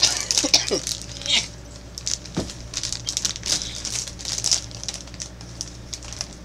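Plastic jelly bean bag crinkling in irregular bursts as it is worked at by hand and then with the teeth to tear it open.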